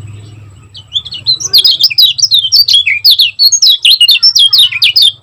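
Kecial kuning white-eye singing a fast, tightly packed run of sharp chirping notes, the rapid 'speed rapat' song kept birds are trained on. It begins about a second in and stops just before the end, over a faint low hum.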